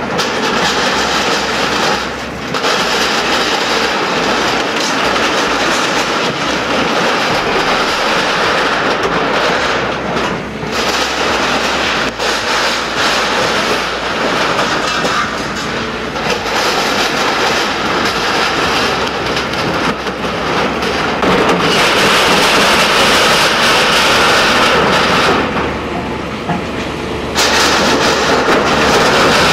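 A SANY hydraulic excavator demolishing a building: the machine's diesel engine runs under load amid the continuous, loud grinding and crashing of corrugated iron roofing, timber and masonry being ripped apart and falling.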